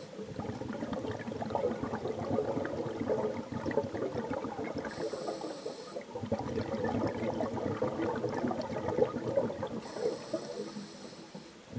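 Underwater sound as picked up by a camera in its housing: a steady dense crackling and bubbling. A brief hiss comes about five seconds in and again near the end.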